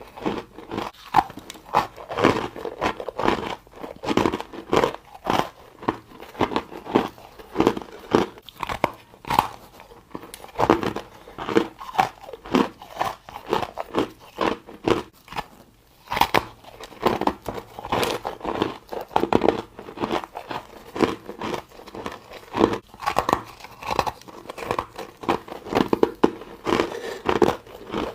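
Ice being bitten and chewed close to the microphone: a steady run of crisp, irregular crunches, easing briefly about fifteen seconds in.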